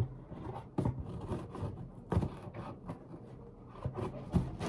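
Scattered knocks, clicks and scrapes of a cardboard shipping box being handled and worked open.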